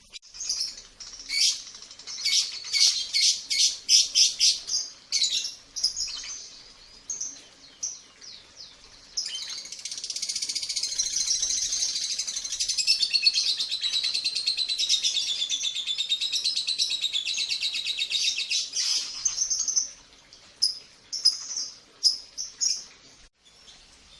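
Lovebirds chirping in quick, sharp, high notes, then one long unbroken warbling trill of about ten seconds that wavers up and down in pitch, followed by a few more scattered chirps.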